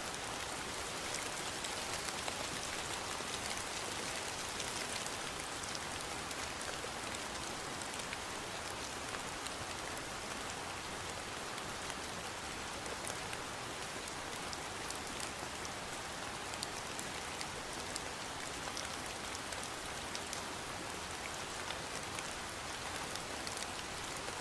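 Steady rainfall, an even hiss with many small drop ticks scattered through it.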